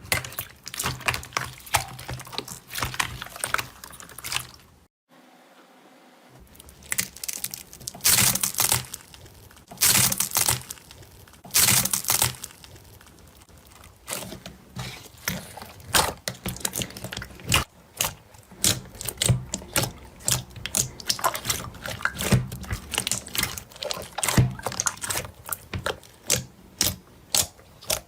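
Slime being squeezed and worked by hand, a dense run of sticky clicks and crackling pops from air trapped in it, with a short break about five seconds in.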